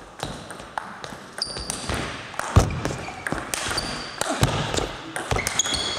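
Table tennis ball clicking and bouncing in a sports hall, among short high squeaks and a heavy thud about two and a half seconds in.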